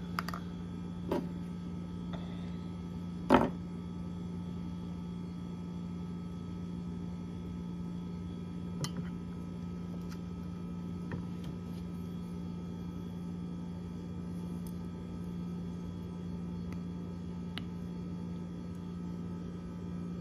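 A few small clicks and taps as a small sealed bearing is handled and pressed by thumb into the axle hole of a compound-bow cam, with one sharper click about three seconds in. A steady low hum runs underneath.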